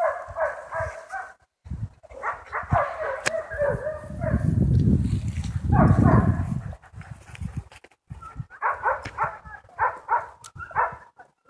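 Harnessed Siberian huskies yipping and whining in rapid high-pitched bursts, the excited cries of sled-type dogs eager to start pulling. There is a loud low rumble in the middle, and the cries break off briefly about two seconds and eight seconds in.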